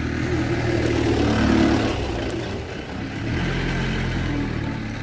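An engine running, its sound swelling to a peak about a second and a half in, easing off near three seconds, then picking up again.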